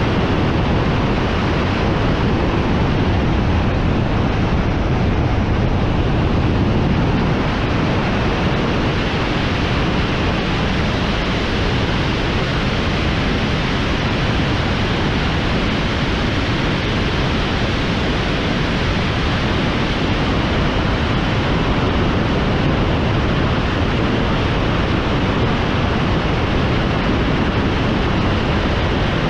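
Steady rush of wind on the microphone of a camera on a moving motorcycle, with road noise blended in.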